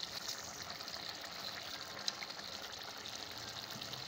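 Mutton liver and tomatoes cooking in oil and their own juices in a pot: a steady, quiet sizzling bubble with faint crackles, and a small tick about two seconds in.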